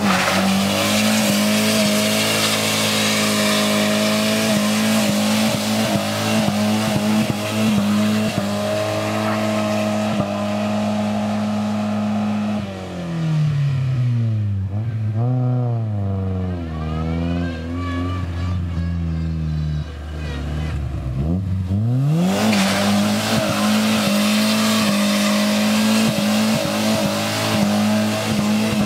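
Honda's 1.85-litre 16-valve engine held at high revs in a burnout, the spinning tyres squealing on the asphalt. About twelve seconds in, the revs drop and waver for several seconds, then climb back to a steady high pitch about 22 seconds in, with the tyres squealing again.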